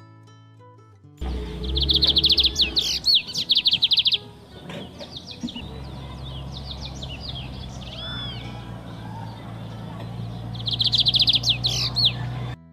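Recorded bird song: fast high trills of repeated chirping notes about a second in and again near the end, with scattered chirps in between, over a steady low rumble. It starts suddenly and cuts off just before the end.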